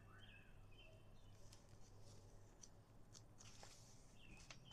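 Near silence with a few faint rustles and soft clicks of a paper picture book's pages being handled, and faint bird chirps in the background.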